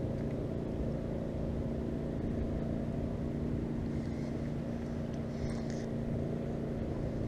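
A steady low motor hum, like a boat or vehicle engine running, with a few faint rustles from a rope being hauled in by hand.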